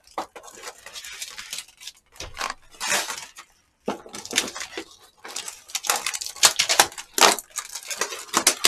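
Plastic takeout containers and their wrapping being handled and opened on a table: irregular crinkling and rustling with light clatter, briefly pausing a little before halfway.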